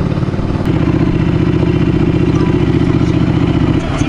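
Ducati Scrambler's air-cooled twin-cylinder engine running at low speed with a steady pulsing beat, easing off near the end as the bike slows.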